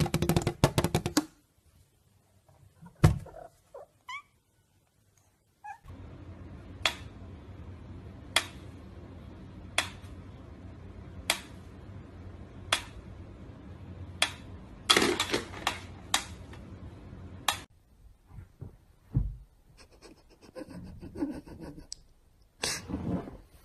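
A mechanical metronome ticking slowly, one sharp tick about every second and a half, with several ticks in quick succession partway through. Scattered knocks and thumps come before and after it.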